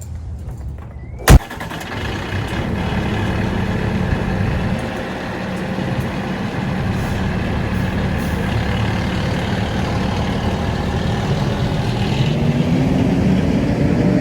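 A sharp loud click about a second in, then a vehicle engine running steadily, its pitch rising near the end.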